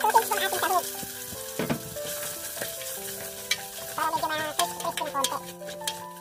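Sliced sausage sizzling in hot oil in an aluminium pot as it is dropped in and stirred with a spatula, with a few light clicks of the spatula against the pot.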